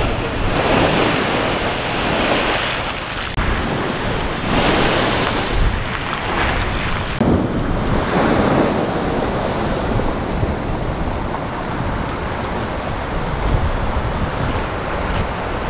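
Heavy storm surf driven by a hurricane, crashing against a concrete seawall and throwing up spray in repeated surges, with wind buffeting the microphone. The crashes come every second or two in the first half, then settle into a steadier rush of water.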